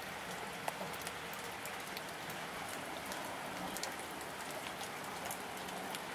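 Steady rainfall: an even hiss broken by many sharp ticks of individual drops striking close by.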